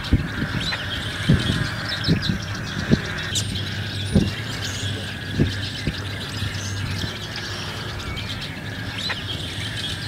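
Outdoor natural ambience of many birds chirping in short, scattered calls, with a few brief low thumps in the first half.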